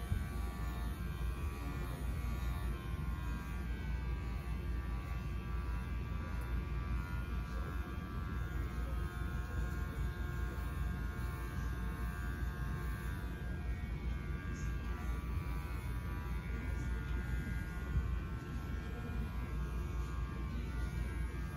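Electric dog grooming clippers running with a steady buzz.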